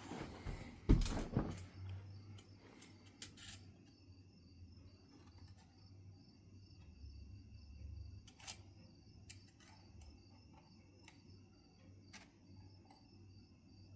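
Knife River flint being worked: a knock about a second in, then scattered sharp clicks as flakes are pressed off, over a faint steady hum.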